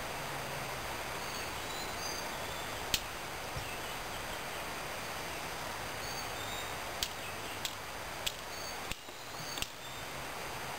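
Sharp, short strikes of a firesteel against the carbon-steel striking platform of a Victorinox Swiss Army knife, throwing sparks to light tinder fungus: one strike about three seconds in, then four in quick succession near the end.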